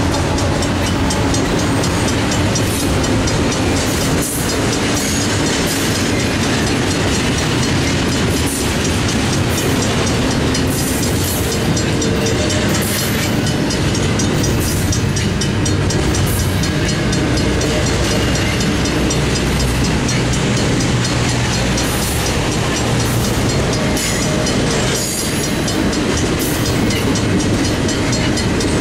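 Union Pacific double-stack intermodal train's well cars rolling past at a grade crossing, with steady wheel-on-rail noise and a clack every second or two as the wheels cross the rail joints. The crossing's mechanical bell rings quickly and without a break over the train noise.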